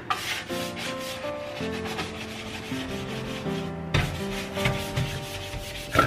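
Hand-scrubbing a wet stainless steel sink: repeated quick rubbing strokes, with soft background music underneath.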